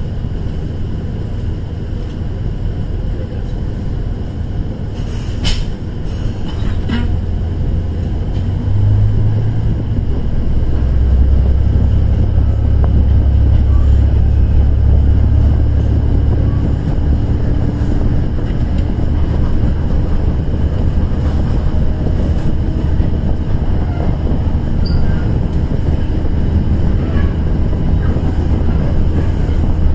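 On-board sound of a KiHa 110 series diesel railcar under way: a steady low rumble of the underfloor diesel engine and the wheels on the rails. The engine note grows louder and deeper about ten seconds in and holds there. A couple of sharp clicks come around five to seven seconds in.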